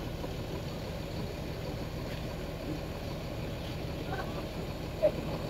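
Mercedes-Benz coach's diesel engine idling, a low even rumble, with a brief short sound about five seconds in.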